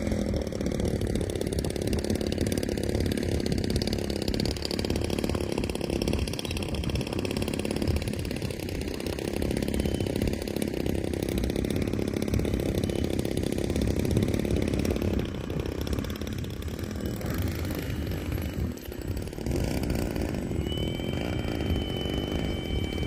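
Electric radio-controlled P-51 Mustang model airplane's motor and propeller buzzing steadily in flight, easing off about fifteen seconds in as it comes in to land. A thin high whine appears near the end.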